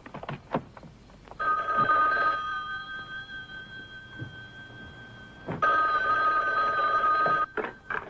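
Telephone bell ringing: two loud rings of a steady, shrill two-tone bell, with the ring fading in between. A few light clicks come before the first ring.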